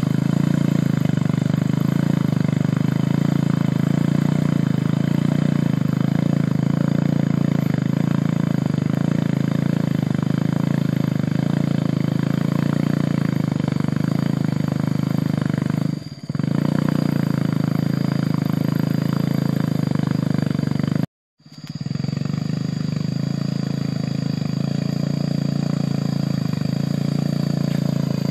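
Homemade off-road buggy's engine running steadily as it drives through shallow floodwater and wet grass. The sound dips briefly about 16 seconds in and cuts out completely for a split second about 21 seconds in.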